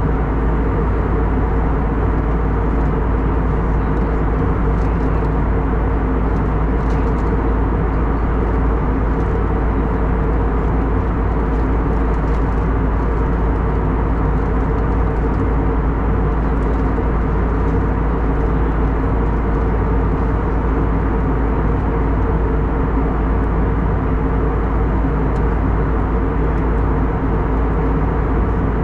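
Steady in-flight cabin noise of an Airbus A321neo heard from a window seat beside the wing: a constant rush of jet engine and airflow over a deep rumble, with a few steady low hum tones.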